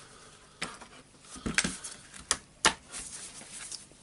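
Handling clicks and knocks of plastic housing parts and small components of a cordless rotary hammer drill being taken apart: about half a dozen sharp, irregular clicks, the loudest in the middle.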